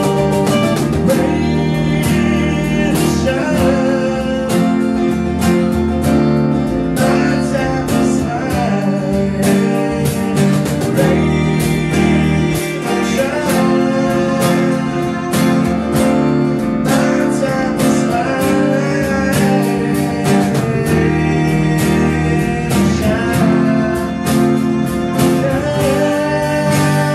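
A small acoustic band playing live: strummed acoustic guitar and a hand drum keeping a steady beat, with a voice singing over them.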